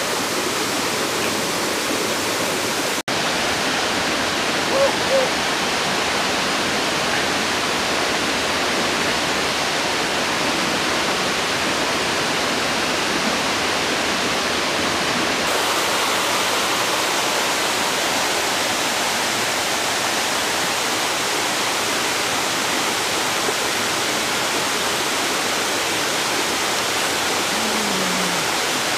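Steady rush of a small forest waterfall. Two short squeaks about five seconds in.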